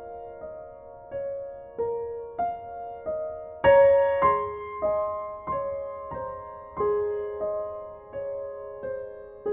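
Soft, slow background piano music: single notes struck about every half second or so, each ringing and fading, with a louder chord about four seconds in.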